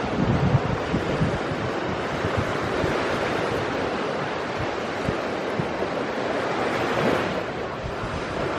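Steady rushing noise of wind and moving water, with short low rumbles of wind buffeting the microphone.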